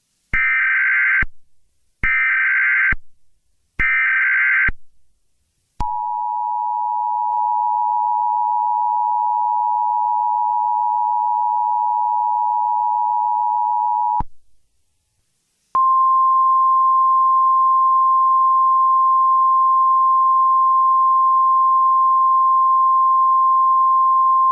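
Emergency Alert System tones: three short buzzy data bursts of the SAME header, then the two-tone attention signal held for about eight seconds, then, after a brief pause, a single steady tone.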